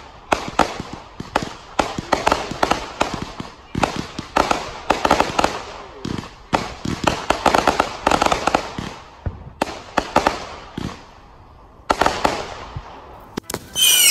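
200-gram consumer firework cakes firing: rapid launch thumps and shell breaks in dense clusters of crackling pops. A lull comes about eleven seconds in, before a last few bangs.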